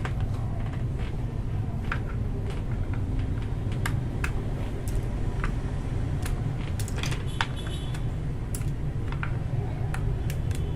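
Scattered, irregular sharp plastic clicks of mechanical keyboard switches being swapped in a hot-swap keyboard, over a steady low hum.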